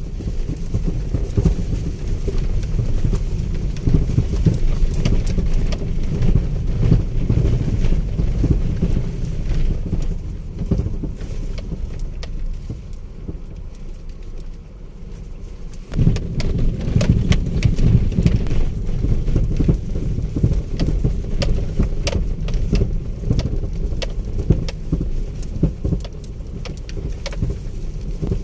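Car ride over a rough road heard from inside the vehicle: a steady low rumble of engine and tyres with many short knocks and rattles. It eases off for a few seconds in the middle, then comes back suddenly louder.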